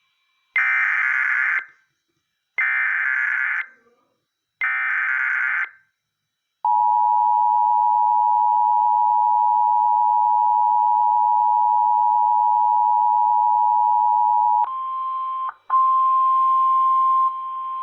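Emergency Alert System header: three roughly one-second bursts of harsh digital data tones, then the loud steady two-tone EAS attention signal held for about eight seconds. Near the end it switches to a slightly higher single steady tone, broken briefly once.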